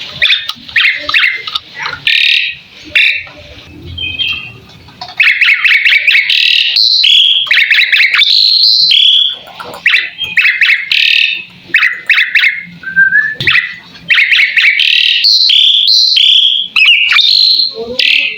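Asian pied starling (jalak suren) singing a long, loud run of varied whistles and rasping chatters, with short lulls about four seconds in and again near ten seconds.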